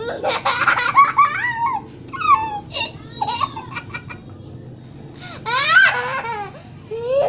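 A young girl laughing loudly in high-pitched bursts: a long fit of giggles at the start, shorter laughs after it, and another loud burst of laughter about five seconds in.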